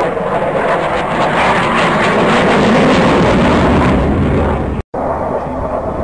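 Jet fighter's engine roar as it flies past, swelling to its loudest in the middle and then easing. A sudden brief dropout near the end, then the roar carries on.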